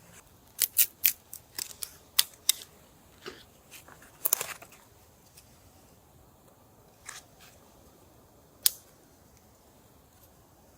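A quick run of short, sharp clicks and scrapes, a longer scrape about four seconds in, then a few fainter ones and a single sharp click near the end.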